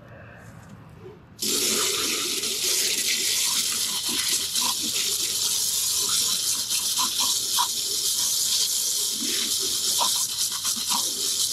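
Hose spray nozzle switched on about a second and a half in: a steady hiss of water spraying, with spatters against the sheet-metal base of a vertical PTAC air conditioner as it is washed out.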